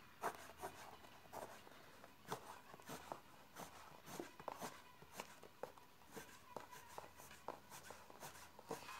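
Faint scratching of a coloured pencil shading on paper, a run of short, irregular hatching strokes about two a second.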